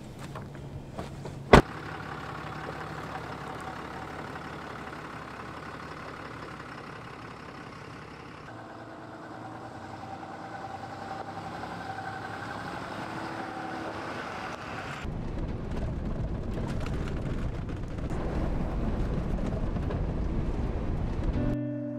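A pickup truck's door slams shut once, about a second and a half in. Then the truck's engine and tyres run as it drives a dirt road, louder and fuller from about two-thirds of the way through, and the sound stops suddenly near the end.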